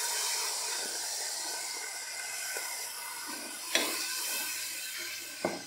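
Chicken stock poured into a pot of hot oil with fried onions and spices, hissing and sizzling steadily and slowly easing off, with a couple of short knocks of a utensil against the pot near the middle and the end.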